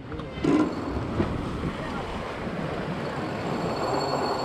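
Wind buffeting the microphone over the rush of waves along the hull of a sailboat under way, with one sharp knock about half a second in.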